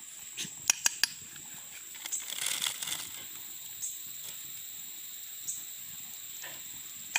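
Metal spoon stirring a simmering stew in an aluminium cooking pot, clinking sharply against the pot four times in the first second, then knocking lightly a few more times.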